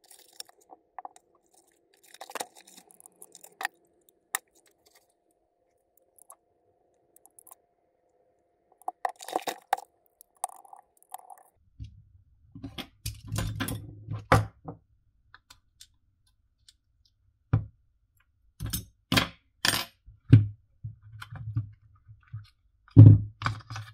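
Clicks, clinks and knocks of small screwdrivers, bits and the sander's plastic housing being handled while small Torx screws are taken out to free the circuit board. The clicks are sparse at first, then a busier run of louder knocks and rattles starts about halfway through.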